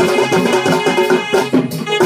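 Live Odia folk dance music: drums beating a quick, even rhythm under a held reed melody.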